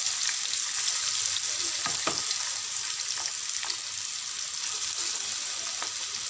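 Julienned carrots and green bell pepper sizzling in hot oil in a non-stick wok: a steady hiss with scattered crackles, and one louder pop about two seconds in.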